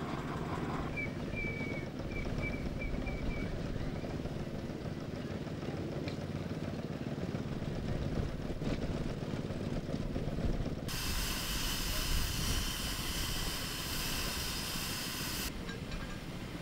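Miniature steam traction engines running, with a steady low rumble. About eleven seconds in, a hiss of steam starts abruptly, lasts about four seconds and cuts off suddenly.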